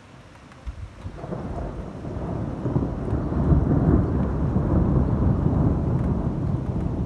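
Thunder rumbling: it starts about a second in, swells to its loudest near the middle and rolls on.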